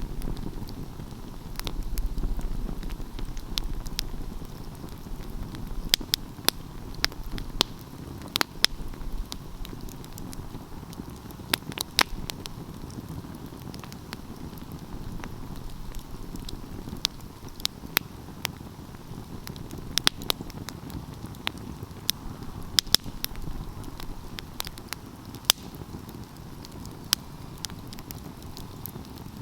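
Wood fire burning: a steady low rumble of flames, heavier in the first few seconds, with frequent sharp, irregular crackles and pops from the burning wood.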